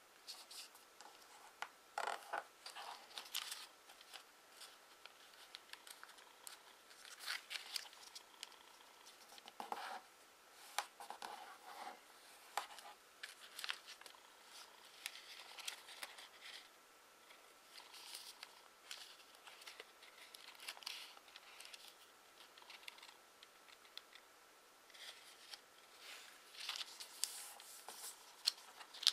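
A sheet of origami paper being handled and folded by hand: irregular crinkling, sliding and creasing sounds as it is worked and opened out flat.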